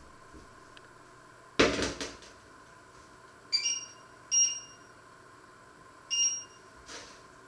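A heavy enamelled cast-iron pot is set down on a glass cooktop with one loud clunk, followed by three short electronic beeps from the cooktop's touch controls as its settings are pressed.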